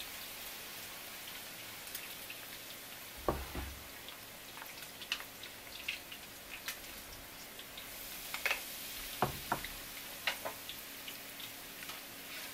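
Battered anago (conger eel) tempura frying in a pot of hot oil: a steady hiss with scattered small crackles and pops. There are two dull knocks, about three and nine seconds in.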